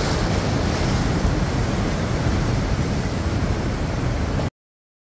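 Ocean surf washing in, with wind buffeting the microphone; the sound cuts off suddenly near the end.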